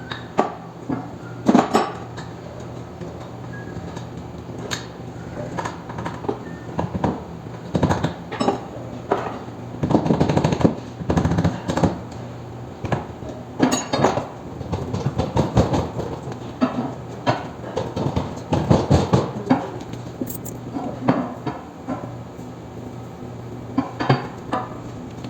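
Irregular metallic clanks, knocks and clinks of hand tools and steel parts being worked on a roller coaster wheel assembly, busiest in the middle, with sharp single strikes between.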